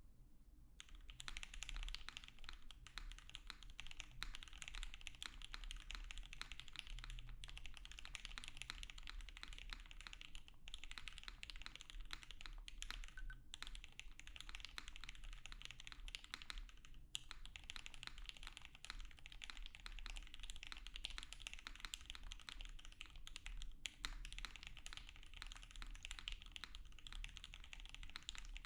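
Typing on a Kyuu 65% mechanical keyboard: Gateron Ink v2 linear switches, lubed and filmed, in an aluminium plate, under CRP APL keycaps. Fast continuous keystrokes begin about a second in, with a few short pauses.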